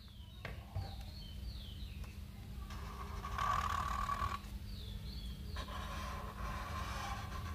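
Black whiteboard marker drawn across paper in two long strokes, a faint scratching; the first starts about three seconds in and the second follows about a second after it stops.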